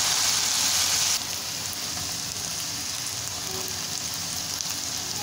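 Diced potato, teasel gourd and yardlong beans frying in oil in a pan: a steady sizzle that drops quieter about a second in.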